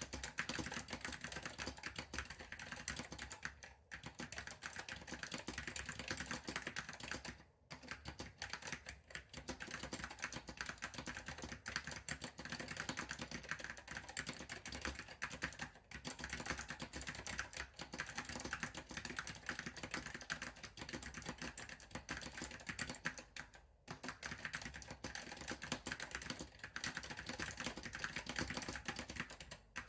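Continuous fast typing on an Apple M0116 Apple Standard Keyboard with Alps SKCM Salmon tactile switches, dense key clicks with a few brief pauses.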